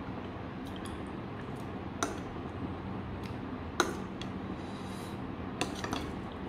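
A metal spoon scraping and clinking against a white ceramic bowl as it scoops up food. A few separate clinks, the loudest about four seconds in and a quick cluster near the end, over a steady low hum.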